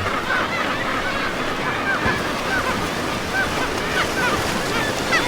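Steady rush of water and wind with many short bird chirps scattered through it.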